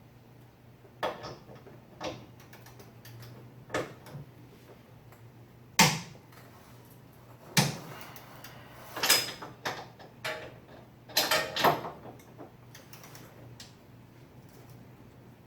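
Hand tools clicking and knocking against metal as the car's bolts are checked for tightness: about a dozen irregular sharp strikes, the loudest two around six and seven and a half seconds in.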